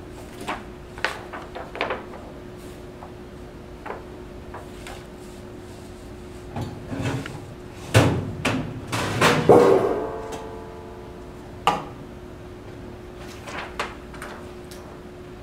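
Papers and a folder handled at a desk, with scattered taps and knocks. About eight to ten seconds in comes a louder clatter of several knocks, the last with a short ringing tail. A steady low hum runs underneath.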